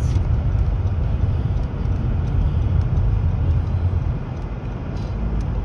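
Steady low rumble of road and engine noise inside a moving car, easing slightly about four seconds in.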